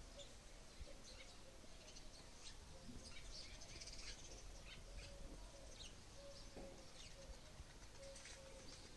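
Faint chirping of small birds: many short, high chirps scattered throughout, with no loud peacock call.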